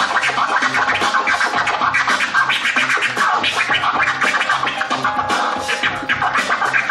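DJ turntable scratching: quick back-and-forth strokes on a record over a steady bass beat.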